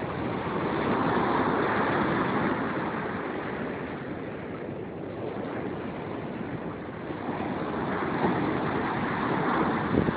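Ocean surf breaking and washing up the sand, swelling twice as waves come in.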